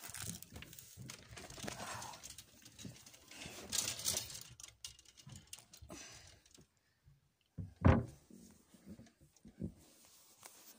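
Rustling and handling noise of clothes and a hand-held phone as a boy clambers into a wardrobe, then a single loud thump near the end.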